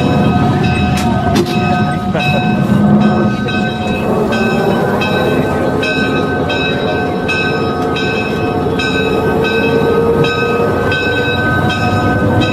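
Rail bus running on the track, its motor note slowly rising, with a bell ringing in a steady rhythm about twice a second.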